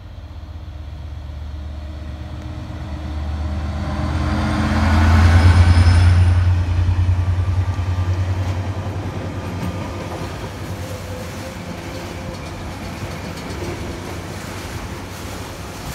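A diesel locomotive hauling a train of rail-carrying wagons passes close by. Its low engine drone builds to a peak about five or six seconds in, then the wagons rumble past on the track as the sound slowly fades.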